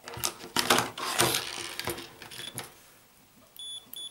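Clicking and rattling as a continuity tester and its probe leads are handled, then near the end the tester sounds a high-pitched beep, broken into short pieces, as its two wires touch and close the circuit.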